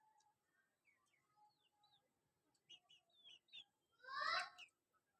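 Chickens calling: faint, scattered short chirps and peeps, then one louder, longer call about four seconds in.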